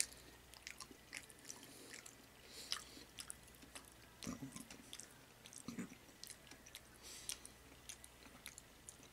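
Faint, close chewing and eating sounds of a person eating salad from a bowl with chopsticks, with scattered small clicks and a couple of soft thuds.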